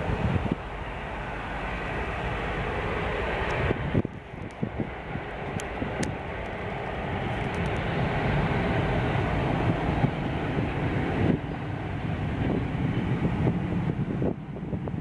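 Four Rolls-Royce Trent 970 turbofans of an Airbus A380-841 running as the airliner turns onto the runway: a steady jet rumble and hiss that dips sharply at about four seconds and again near eleven.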